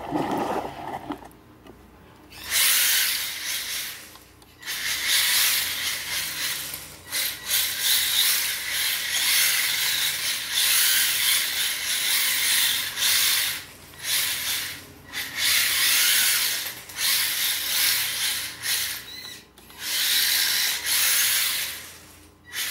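HSP 94123 Flying Fish 1:10 4WD brushed electric drift car whirring as it drives and drifts across a tile floor, its motor and gears running in bursts of a second to several seconds, starting and stopping repeatedly with the throttle.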